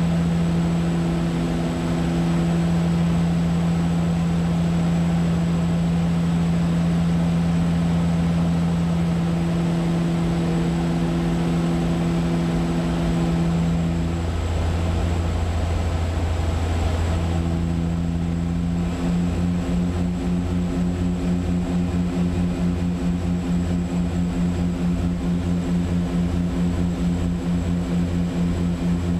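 Cockpit drone of a de Havilland Canada DHC-6 Twin Otter seaplane's twin turboprop engines and propellers in flight. The pitch shifts as the overhead power levers are moved about halfway through, and after that a regular pulsing throb of about two or three beats a second sets in.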